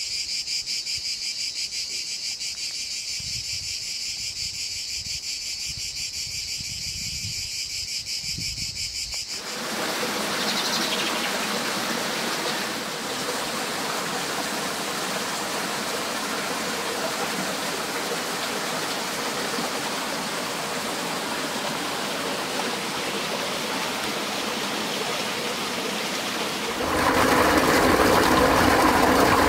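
A chorus of high, rapidly chirring insects, which cuts off about nine seconds in to a steady rush of flowing water. Near the end the rush grows louder and fuller: a small waterfall splashing into a rock pool.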